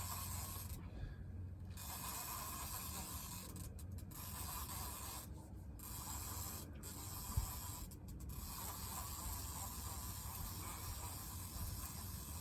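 Steady hiss of wind on the microphone, with a fishing reel being cranked as a hooked catfish is reeled in.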